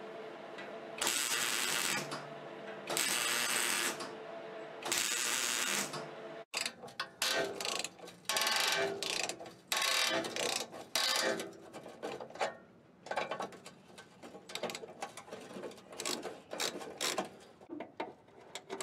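Three harsh power-tool bursts of about a second each on a new muffler's outlet pipe, then a hand socket ratchet clicking in quick irregular strokes as it works a bolt on a rusty exhaust mount bracket.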